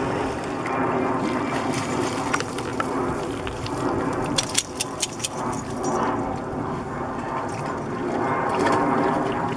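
A steady outdoor rumble, with a dog's collar tags jingling in a quick run of sharp clicks about halfway through.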